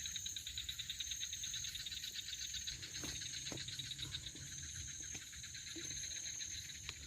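Night insects chirring: a fast, evenly pulsing trill with a steady high-pitched whine above it, joined by a few faint clicks in the second half.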